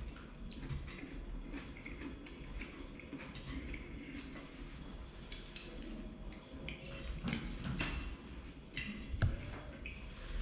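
Close-up wet chewing and mouth sounds of a man eating pasta with ackee and saltfish, with a metal fork clicking and scraping on the plate; one sharper click about nine seconds in.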